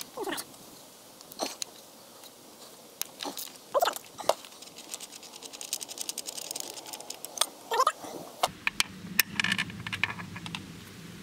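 Small hand ratchet clicking in quick runs while loosening bolts on a Jaguar XJR's supercharger intake, with scattered clinks of the tool against metal. A low steady rumble comes in about two-thirds through.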